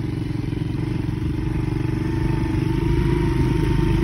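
Small petrol engine of a motor tricycle running steadily at low road speed, gradually getting louder.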